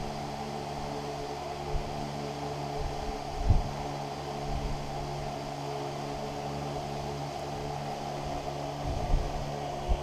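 Steady machine hum with several held tones over a light hiss, with one short low thump about three and a half seconds in.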